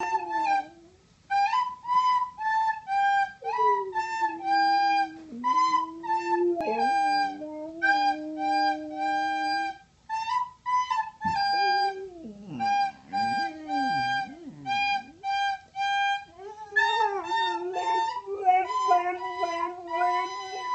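A recorder playing a simple tune in short, separate notes, with a dog howling along beneath it in long, wavering tones that slide in pitch, joining in a few seconds in.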